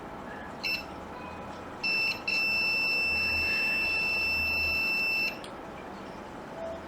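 Multimeter continuity beeper sounding as the probes touch connected points on a logic board: a short beep, a second brief beep, then one steady high beep of about three seconds. The beep means the trace has continuity; the line is intact.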